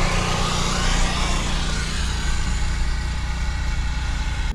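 An engine idling steadily: a low drone under a broad hiss.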